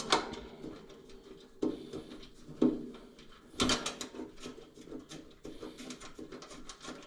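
Socket wrench working rusted 13 mm hood bolts: scattered small metal clicks and ticks, with sharper knocks about one and a half, two and a half and three and a half seconds in.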